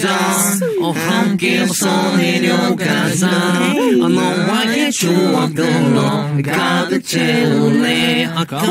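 A group of young men singing a short radio-show jingle together in a deliberately cute, playful style.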